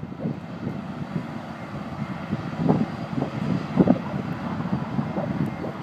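New Mexico Rail Runner Express diesel commuter train running as it pulls out of the station and slowly approaches, a low continuous rumble. Irregular gusts, most likely wind on the microphone, surge over it, strongest around the middle.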